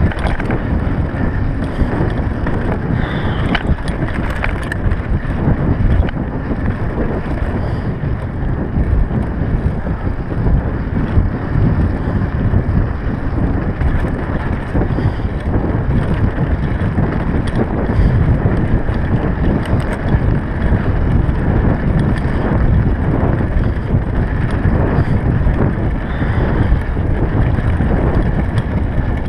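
Mountain bike riding fast over a rough dirt trail: tyres crunching on gravel and the bike rattling over bumps, with a steady rush of wind on the microphone.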